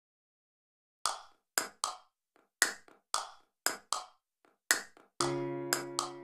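Intro music: sharp clicking percussion hits in a loose rhythm, about two a second, begin about a second in. Sustained pitched chords come in under them about five seconds in.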